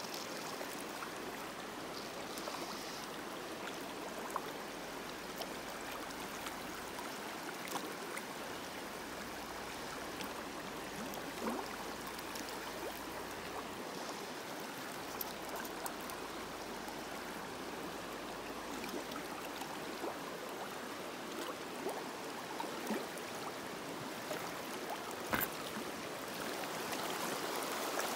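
Shallow river running over stones: a steady babble of flowing water, with a few light clicks scattered through it, one a little sharper near the end.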